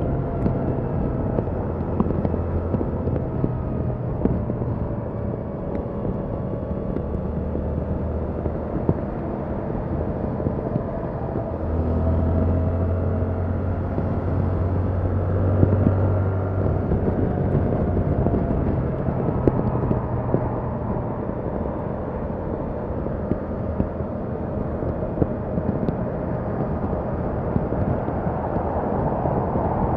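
Yamaha MT-07's 689 cc parallel-twin engine running on its stock exhaust while riding, the engine note rising and falling with the throttle and strongest for a few seconds from about twelve seconds in, over a steady rush of road and wind noise.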